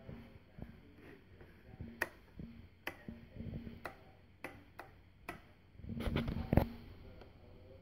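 Irregular sharp clicks and light knocks from handling, one or two a second, with a louder rustle and knock about six seconds in.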